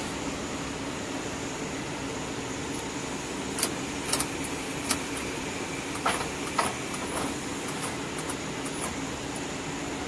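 Steady mechanical hum of wire-harness braiding machinery, with a handful of sharp metallic clinks around the middle as a gloved hand handles the machine's bobbin carriers.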